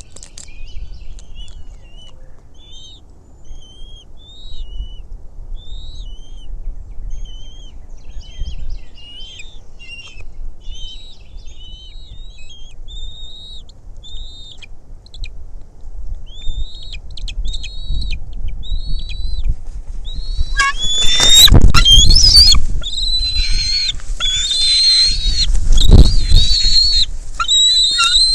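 Bald eagles calling: a long series of short, high, thin chirps, about one a second, that turns much louder and denser about 20 seconds in. Two heavy low thuds with a rush of noise come with the louder calling, a little over 20 seconds in and again near the end.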